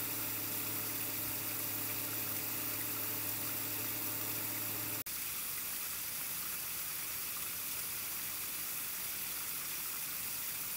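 Steady hiss of a trail camera's recording, with a low hum in the first half. The hum stops at a brief dropout about five seconds in, where one clip ends and the next begins, and the hiss carries on alone.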